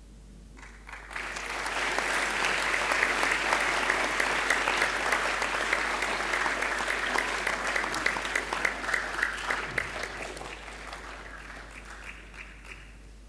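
Audience applauding: the clapping starts about a second in, swells quickly and slowly tapers off near the end.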